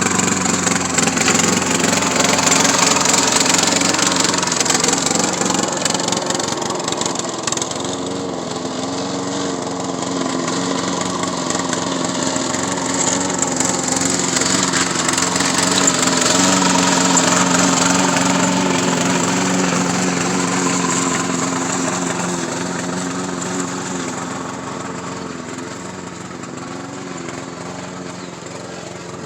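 Small lawn mower engine on a remote-controlled mower, running continuously with slight wavers in pitch; it grows louder and softer and fades gradually over the last several seconds.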